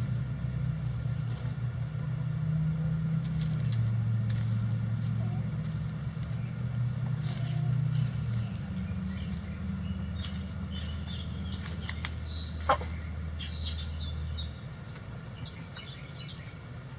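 A low engine drone, steady but shifting pitch a couple of times and dropping away about two-thirds through, under chickens scratching in litter. Short high chirps and clucks come from the hens in the second half, with one sharp click about thirteen seconds in.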